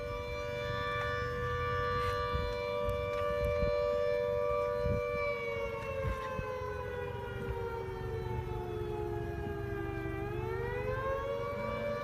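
Civil defense siren sounding a steady two-note tone, which slowly sags in pitch from about five seconds in and climbs back to its steady pitch near the end, over a low rumble.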